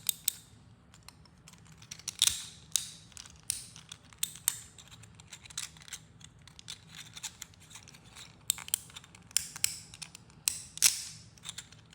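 Irregular sharp clicks and snaps with short scrapes, from a 3D-printed plastic object being handled and worked.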